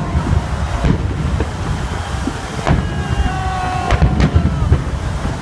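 Fireworks display: shells bursting with sharp bangs over a continuous deep rumble of distant booms, about five distinct bangs. A few thin whistles glide downward between the bursts.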